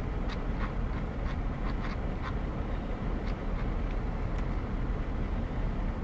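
Sharp plastic clicks of buttons pressed on a Porsche Cayenne Turbo's PCM head unit, about ten over the first four and a half seconds, over a steady low vehicle rumble. No radio sound comes through: the unit's volume has failed.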